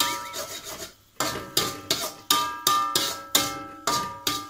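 Metal spatula chopping and scraping egg in a steel wok, striking the pan about three times a second, each strike leaving a short metallic ring. There is a brief pause about a second in.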